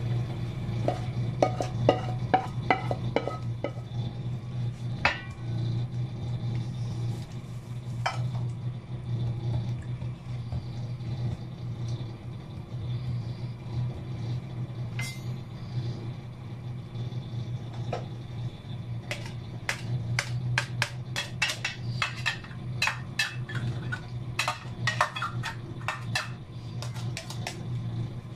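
A wooden spoon and pan scraping and tapping against a steel tray as hot peanut-caramel mixture is poured out and spread flat. The clicks and taps cluster in the first few seconds and again through the second half, over a steady low hum.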